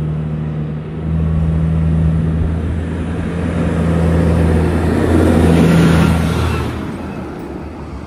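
Claas Xerion tractor towing a set of discs drives past on the road: a steady engine note with tyre noise that grows as it approaches, is loudest about five to six seconds in, then fades as it goes by.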